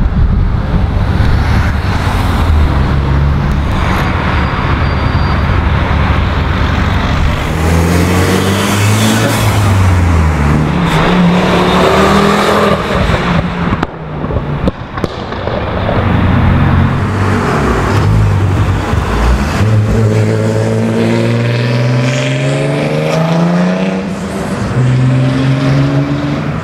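Car engines revving hard as several cars accelerate one after another, each pitch climbing, dropping at a gear change and climbing again as the car passes.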